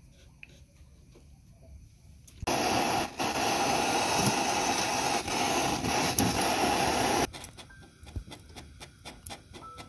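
A jeweler's torch flame hissing loudly and steadily for about five seconds, with a brief dip just after it starts. It cuts off suddenly, leaving faint clicks.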